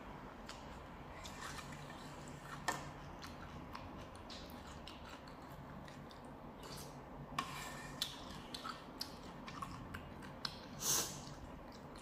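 A person eating thick noodle soup up close: sipping and slurping broth from a spoon and chewing, with sharp clicks of the spoon and chopsticks against the bowl now and then. A louder slurp comes near the end.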